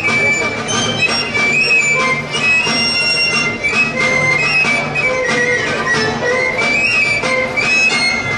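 Basque folk dance music: a high flute-like melody, with fiddle, over a low sustained tone and a steady beat.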